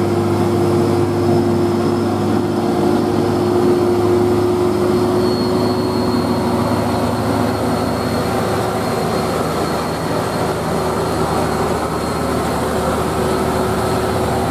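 Heavy diesel engine of a large intercity coach running steadily as the bus drives past close by, with a thin high whine joining about five seconds in.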